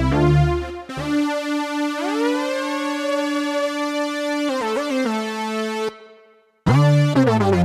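Oberheim Two Voice Pro analog synthesizer playing an octave lead patch. One note is held while the second voice glides up to an octave above it, then a few shorter notes follow. The sound fades out about six seconds in, and a new passage with deep bass notes starts near the end.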